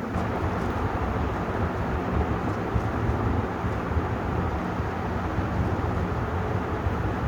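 56-inch Vision ceiling fan running: a steady rush of moving air with a low motor hum underneath.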